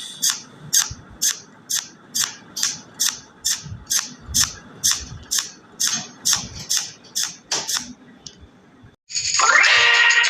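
A rapid, even run of about twenty sharp clicks or snaps, two to three a second, which stops about eight seconds in. Music comes in near the end.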